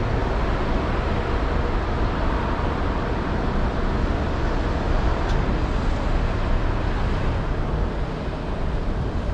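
Steady road-traffic noise from a city street, a continuous low rumble and hiss with no distinct events.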